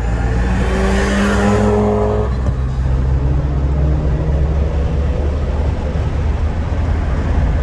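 Turbocharged 1.6 THP four-cylinder engine of a tuned Peugeot 208 GT accelerating hard, its note rising for about two seconds and then breaking off, followed by steady loud engine and road noise.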